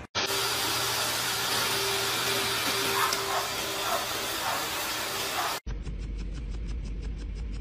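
High-velocity pet grooming dryer blowing air through its hose: a steady, loud rushing hiss that cuts off suddenly after about five and a half seconds. It gives way to a quieter low hum with a faint, fast ticking pulse.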